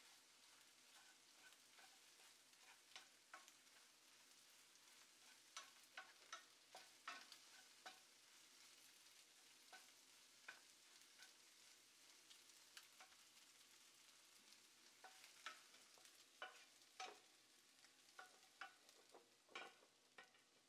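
Scrambled eggs frying faintly in a nonstick frying pan, with irregular taps and scrapes as a wooden spatula stirs and breaks them up.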